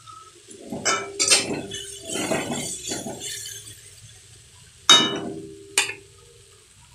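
Metal spatula clinking and scraping against a steel kadai while stir-frying noodles: several clinks and scrapes in the first three seconds, then two sharp clinks near the end, the pan ringing briefly after them.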